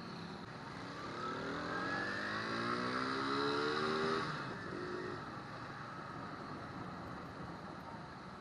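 Suzuki GS-150's single-cylinder four-stroke engine accelerating under way, its pitch rising for about four seconds before easing off, with steady road and wind noise underneath.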